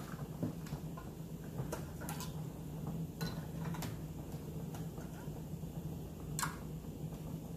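A handful of light clicks and scrapes as a plastic spatula scrapes chocolate syrup from a metal saucepan into glass canning jars, over a steady low hum.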